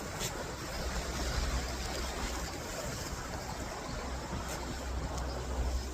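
Outdoor wind rumbling on the microphone over a steady rushing hiss, with a few faint clicks.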